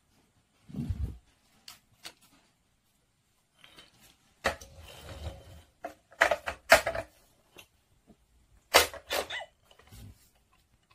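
Scattered light knocks and sharp clicks of hard plastic as a toy baby bottle and a plush puppy are handled and set into a plastic toy stroller. The sharpest clicks come in pairs about six and nine seconds in.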